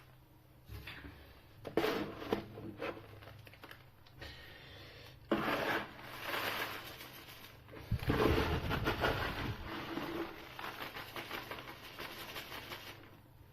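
Tofu-and-corn cat litter pellets being scraped and shifted in a litter box, in irregular bursts of rustling and scraping that grow busier and louder after about five seconds.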